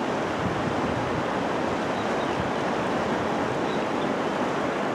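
Waterfall rapids with a strong current rushing steadily.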